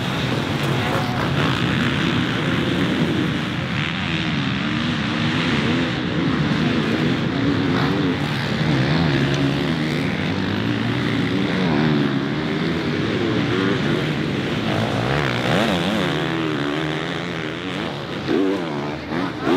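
Several motocross bikes racing, their engines revving hard, the pitch of each rising and falling as riders accelerate, shift and back off. The overlapping engine notes never let up.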